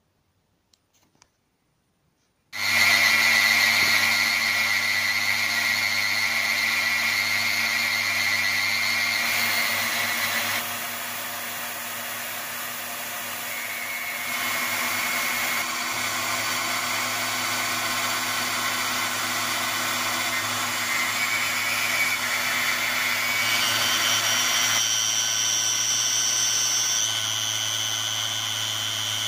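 Maxnc-10 benchtop CNC mill with its upgraded spindle motor running and an end mill cutting nylon: a steady machine whine. It starts suddenly a couple of seconds in and changes abruptly in pitch and loudness a few times.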